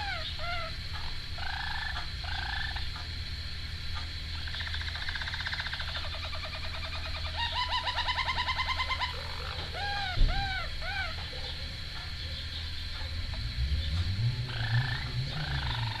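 Harz Roller canary singing: a continuous song of repeated arched notes and rapid rolling trills. Under it runs a low hum that swells near the end, and there is a single knock about ten seconds in.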